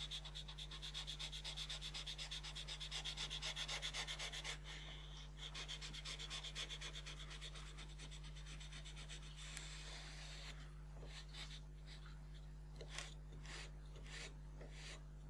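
Solvent-dampened rag wrapped over a knife blade, rubbed quickly back and forth along a rubber car window seal to wipe off paint overspray, several strokes a second. The rubbing breaks off briefly after about four seconds, then thins out to a few faint scrapes in the last third.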